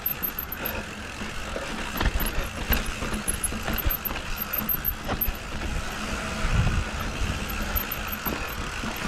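Mountain bike riding down a rough, sandy dirt trail: tyres rolling over loose dirt, with frequent knocks and rattles as the bike hits bumps and drops, under steady wind rush on the microphone.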